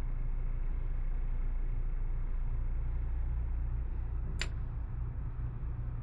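Steady low background hum, with a single sharp click about four and a half seconds in.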